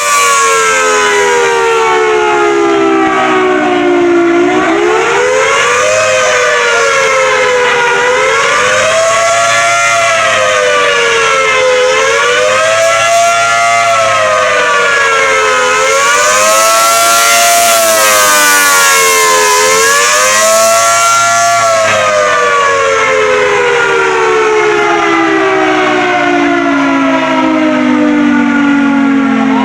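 Allertor outdoor warning siren sounding a loud wail: its pitch falls, then rises and falls in slow cycles about four seconds apart, five times. After that it glides steadily down in a long wind-down.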